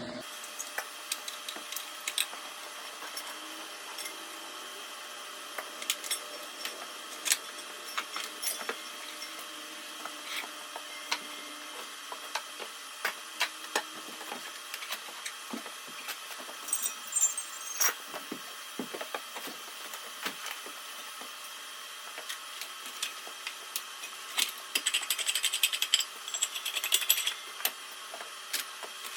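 Scattered light clicks and clanks of metal pieces and hand tools being handled while working on a steel welding table, with a short rasping, scraping stretch near the end.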